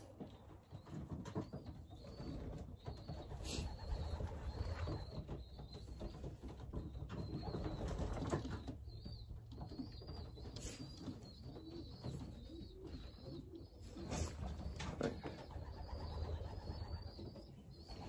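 Racing pigeons cooing from the loft, low repeated coos.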